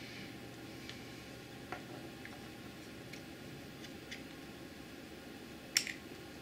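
Faint plastic clicks and handling noise from a Logitech C525 webcam being turned and adjusted on its clip mount in the hands, with one sharper double click near the end.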